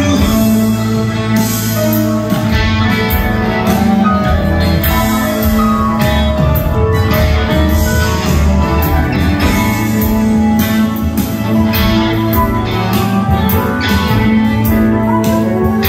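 A live band playing amplified music, recorded from the audience in the hall: guitar over upright bass and piano, with a steady beat and little or no singing.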